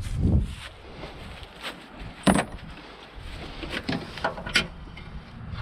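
Scattered knocks and clicks of tools and metal parts being handled during front-end disassembly, with one sharp metallic clank that rings briefly a little over two seconds in.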